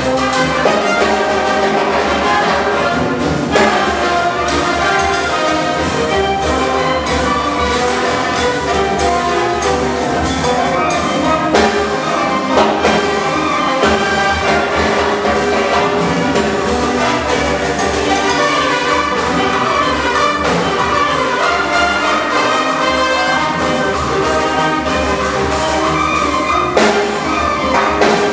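Symphonic wind band playing a piece, with the brass section prominent over a steady rhythmic pulse.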